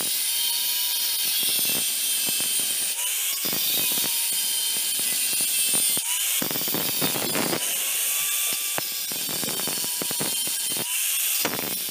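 Angle grinder with a cutting disc cutting into the steel shell of a hermetic refrigerator compressor. A steady high-pitched grinding hiss runs over the motor's whine, which dips and recovers as the disc bites. Louder gritty surges come several times.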